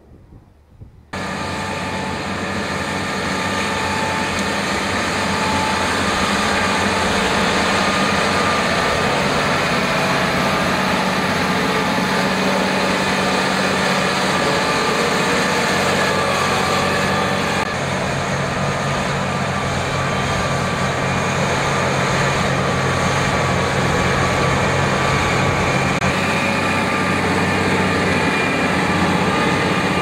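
John Deere 8RT track tractor's engine running steadily under load while pulling front and rear ploughs through the soil. It comes in suddenly about a second in, and its tone shifts a little just past halfway.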